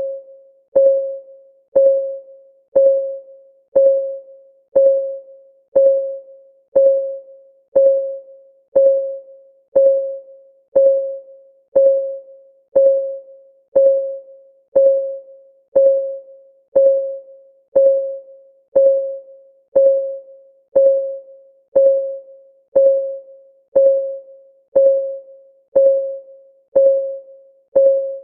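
Countdown timer's ticking sound: a short, clean, pitched tick about once a second, each one starting sharply and dying away quickly, keeping a perfectly even beat.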